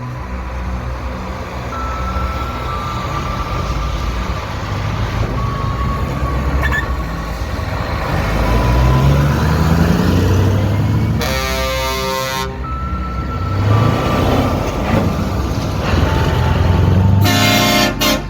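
Heavy truck engine running, its pitch rising as it revs and pulls away, with a loud truck horn blast about eleven seconds in and a second, shorter blast near the end.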